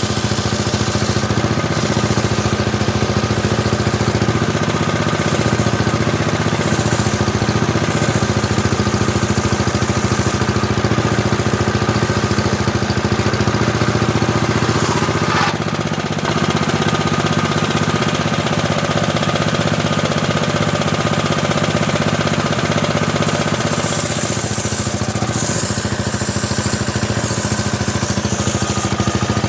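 Homemade table saw running steadily, with a brighter hiss from the blade during two long stretches near the start and near the end as it rips teak wood.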